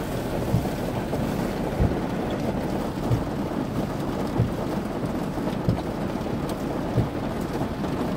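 Steady low rumble and air noise inside a car waiting at a drive-thru window, with soft knocks from the handheld phone every second or so.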